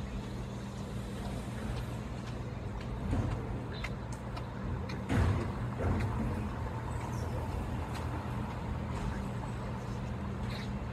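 Street traffic: a vehicle engine running steadily at low pitch, with a short louder rush about halfway through and another a second later.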